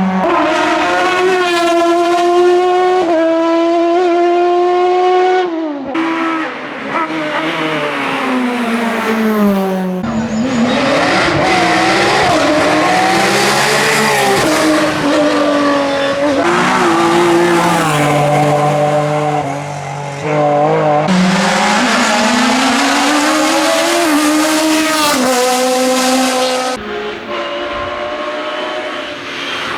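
Hillclimb race car engines at full throttle, revving high and shifting up through the gears, with the pitch climbing and dropping back again and again. Several separate runs follow one another, each breaking off abruptly.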